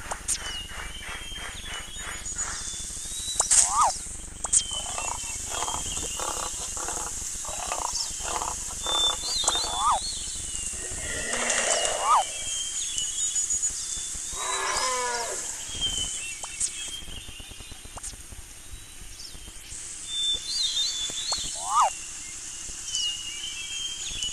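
Mixed animal sound effects. A fast, even run of thuds, like running footfalls, fills the first half, and several animal calls follow, one falling in pitch about fifteen seconds in. Short high chirps recur throughout.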